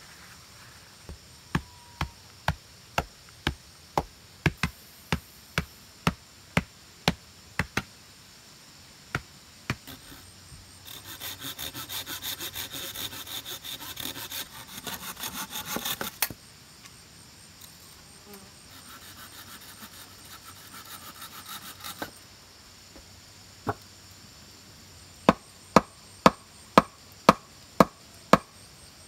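Sharp knocks about two a second as a flat wooden tool chops into a gravel floor. Then a hand saw rasps through a wooden pole, loud for about five seconds and fainter for a few more. Near the end come more loud knocks, about two a second, as short wooden stakes are hammered into the ground.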